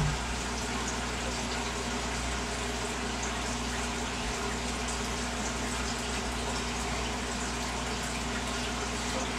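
Steady bubbling and water movement in an open-top aquarium from its air stones, with water stirred by a hand working underwater, over a steady low hum.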